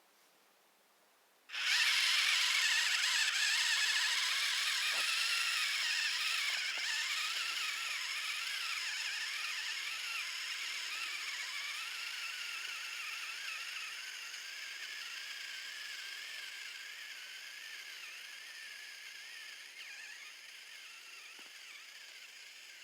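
RC crawler truck's electric motor and gear drivetrain whining, its pitch wavering up and down with the throttle. It starts suddenly after a second or so of near silence and gradually gets fainter.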